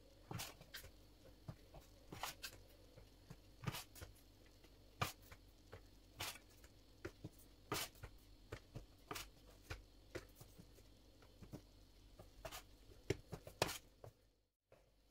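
Metal bench scraper clicking and knocking against a stainless steel worktop as bread dough is cut into portions, with light handling of dough pieces on a kitchen scale. The knocks come irregularly, one or two a second, and the sound drops out briefly near the end.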